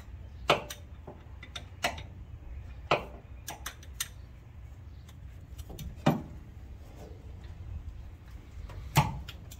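Irregular sharp metallic clicks and clinks of a socket wrench and extension working a spark plug out of a Ford 289 V8, over a low steady hum.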